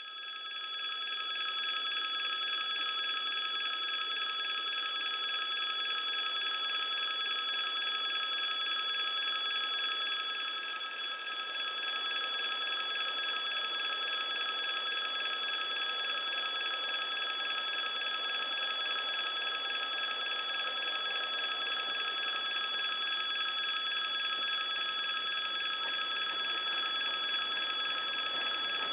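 Level-crossing warning bell ringing continuously with a fast, even trill. A faint low rumble of the approaching diesel-hauled passenger train joins under it in the second half.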